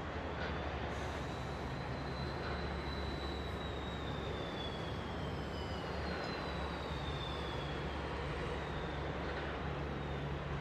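Steady machinery noise with a low hum, and a faint high whine that slowly falls in pitch through the middle.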